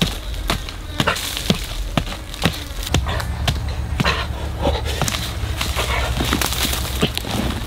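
A digging tool striking hard, dry soil about twice a second, then hands scraping and tossing loose clods and dirt. A low rumble rises underneath from about three seconds in.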